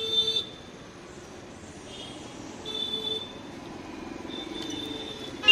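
A motor vehicle engine running close by, a low pulsing hum that grows over the last second or so. A steady high electronic tone breaks off just after the start and sounds again briefly around the middle, and there is a sharp click at the end.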